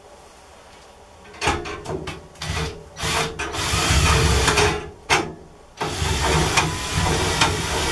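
A handheld power tool worked into wood: a few short bursts, then two longer runs of about two seconds each.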